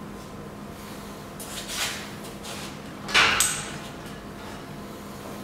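Bulk tote bag being handled and its handles clipped onto a hanging steel lifting frame: short rustles of the bag fabric and a sharp clack a little over three seconds in, the loudest sound.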